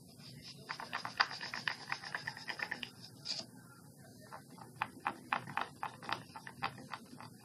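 A thin stirrer mixing paint in a bowl, tapping and scraping against the bowl in quick strokes. The clicking comes in two spells, the second about halfway through.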